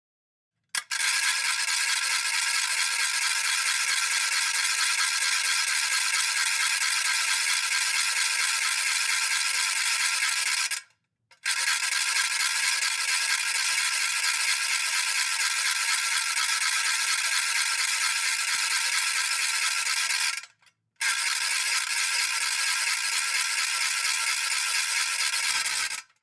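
Spinning New Year's noisemaker whirled round, giving a fast, continuous rattling clatter. It runs in three long spins, stopping briefly twice.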